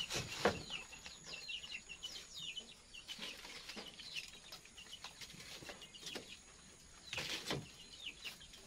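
Small birds chirping over and over, short high chirps that slide downward. A few knocks and rustles of split firewood and dry leaves being pushed into a wood-fired stove, the loudest about half a second in and again around seven seconds in.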